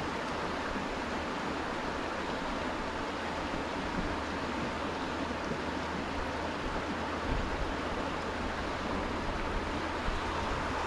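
Steady rush of water, with a faint low thud about seven seconds in.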